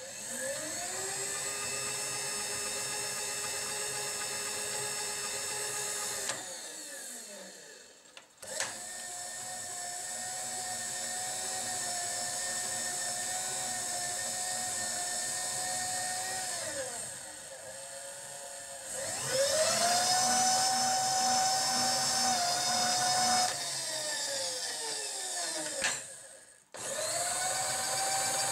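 AL-310S power feed motor on a milling machine's X-axis, started and stopped four times. Each run is a whine that rises as the motor spins up, holds steady and falls away as it runs down. The first run is lower pitched than the rest, and sharp clicks come between some runs.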